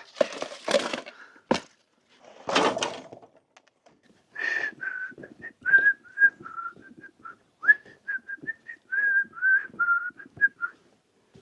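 A few rustling noises and a knock, then a person whistling a tune in short, slightly wavering notes for about six seconds.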